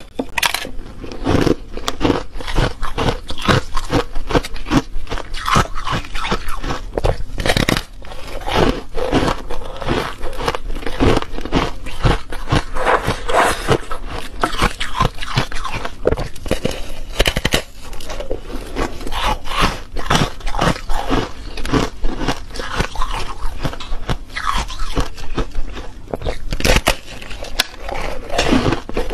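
Teeth biting into and chewing a disc of refrozen foam ice: a steady run of crisp, crackling crunches, several a second.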